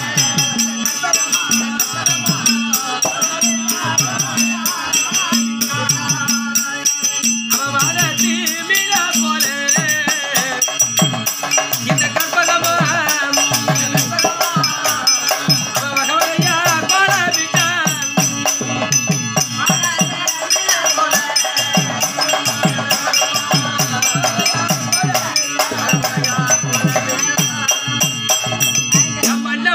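Live folk-theatre music: a harmonium melody over a steady beat, with constant metallic jingling throughout.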